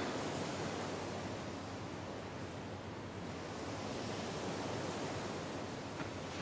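Sea surf: a steady rush of waves that swells and eases.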